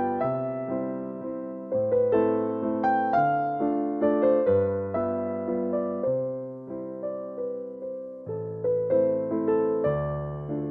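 Background music: a gentle, slow piano piece of broken chords, the notes struck and left to ring and fade.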